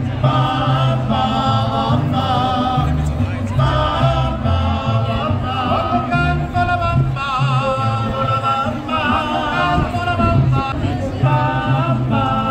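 Live band playing on a festival stage: several male voices singing together with vibrato over guitars and a low bass line, heard through the stage PA.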